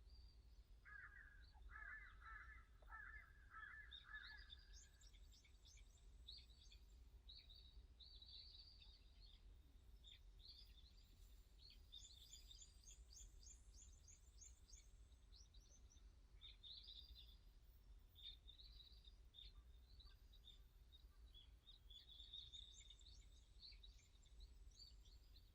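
Wild birds singing and calling: a run of harsher repeated calls in the first few seconds, then high chirps and quick trills coming and going, over a faint steady low rumble.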